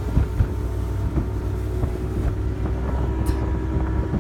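Wind buffeting the microphone on a boat in rough, choppy water: a constant low rumble with a steady faint hum underneath.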